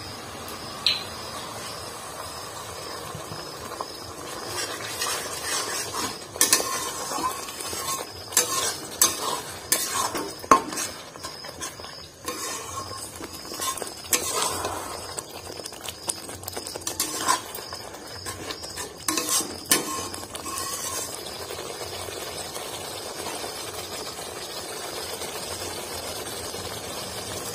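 Metal spatula stirring and scraping thick onion-tomato masala in a metal kadai, with repeated clinks against the pan, over a steady sizzle. The masala is being slow-fried with a little water until it thickens. The clinking stops about three quarters of the way through, leaving only the sizzle.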